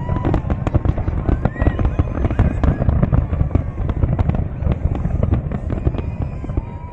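A fireworks display: a rapid, unbroken barrage of booms and crackling bangs over a continuous low rumble, with some high whistles gliding over it.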